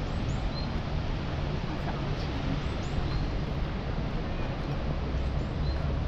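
City park ambience: a steady low rumble of distant traffic, with short high bird chirps coming in pairs about every two and a half seconds.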